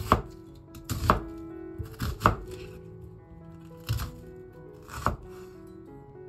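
A chef's knife slicing through an onion and knocking down onto a wooden cutting board, about five chops roughly a second apart, over soft background music.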